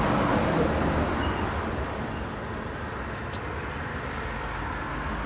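A motor vehicle engine running, a steady low rumble that is a little louder during the first second.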